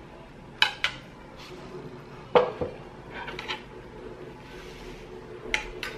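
Metal spoon and fork clinking and scraping against a ceramic plate of rice: two quick clinks about half a second in, the loudest clink a little before halfway, a short run of scrapes after that, and a few more clinks near the end.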